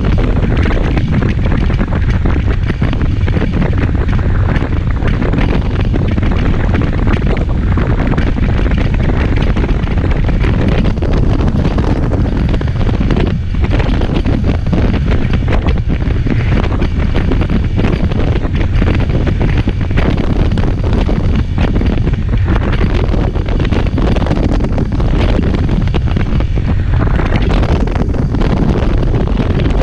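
Wind buffeting the microphone of a moving motorcycle: a loud, steady rumble of noise with no breaks.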